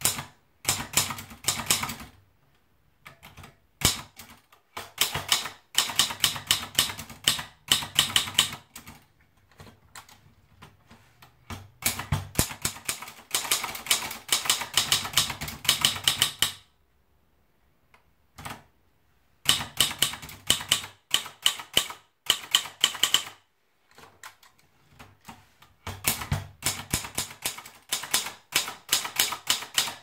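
Triumph Tippa manual portable typewriter being typed on: runs of quick, sharp key strikes with short pauses between them, the longest pause of about three seconds a little past the middle.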